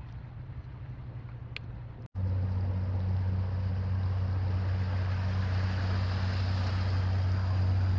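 A motorboat engine running steadily offshore, a low even drone that starts abruptly about two seconds in, with a hiss of wind and water over it.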